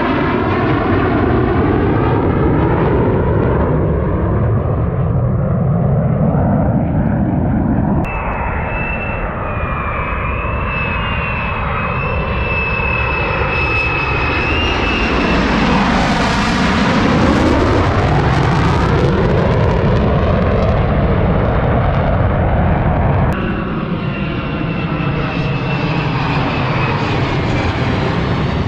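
Jet engine noise of fighter jets flying low in pairs: first a pair of F-16s, then a pair of F-35s whose steady high whine grows as they approach, then drops in pitch as they pass overhead about halfway through. The sound jumps abruptly at two edits, about 8 s in and near 23 s.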